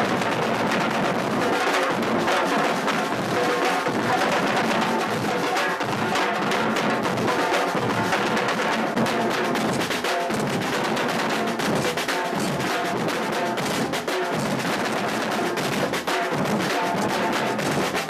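Percussion group drumming together in a dense, unbroken rhythm.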